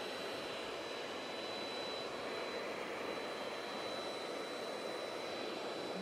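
Bee vacuum running steadily, its motor giving a constant rushing noise with a thin, steady high whine, as the hose sucks bees off the exposed honeycomb.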